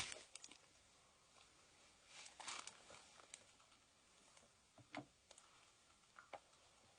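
Near silence in a small room: a sharp click right at the start, then a few faint clicks and soft breathy rustles.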